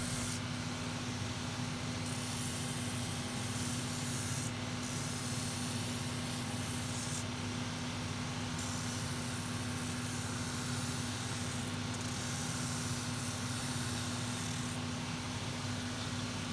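Shoe finishing machine running with a steady hum while the stacked leather heel of a cowboy boot is shaped on its rough sanding paper. The gritty sanding hiss drops away briefly several times as the heel comes off the paper and is set back on.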